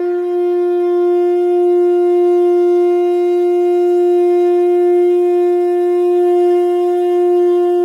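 A single sustained wind-instrument note, one unwavering tone held for about eight seconds, then cut off abruptly.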